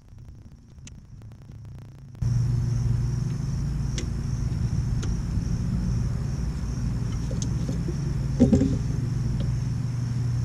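A steady low motor or engine hum starts abruptly about two seconds in and runs on, the loudest sound. Over it come a few small metallic clicks of pliers working a cotter pin out of a trailer wheel hub's castle nut.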